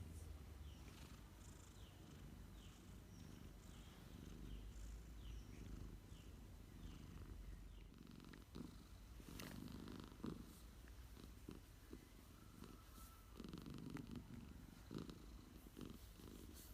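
Napping domestic cat purring: a faint, low, continuous rumble that swells and eases every few seconds.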